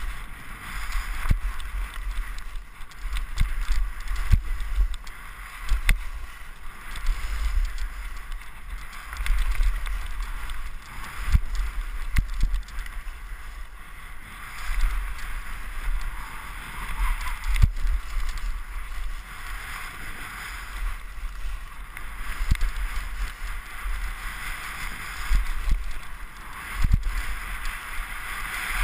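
Skis carving down a packed-snow piste, the edges scraping in a swell with each turn about every two seconds, with wind buffeting a helmet-mounted GoPro's microphone.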